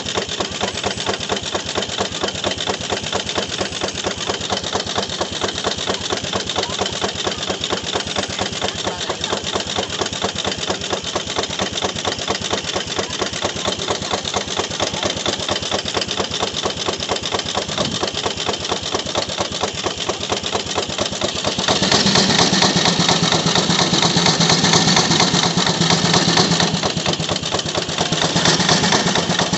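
13 horsepower Gaar-Scott steam traction engine running on the belt to drive a sawmill, with a fast, even beat. About two-thirds of the way through, a louder steady hum with hiss joins for several seconds and again briefly near the end, as the saw takes a cut.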